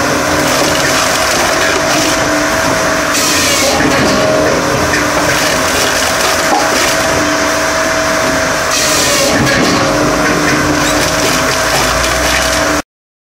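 Bell's 6000C firewood processor, driven by a 100 hp electric motor, running under load as logs are split, with a steady machine hum, two held tones and the noise of wood splitting and tumbling. The sound turns brighter and hissier about 3 and 9 seconds in, and cuts off suddenly near the end.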